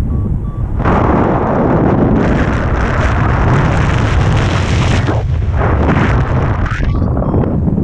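Wind rushing over the action camera's microphone in flight on a tandem paraglider: loud, starting about a second in, dropping briefly twice and falling away near the end.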